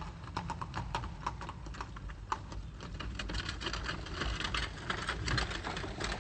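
Cartoon sound effect of a horse's hooves clip-clopping as it pulls a carriage: a quick run of sharp clicks that grows denser about three seconds in.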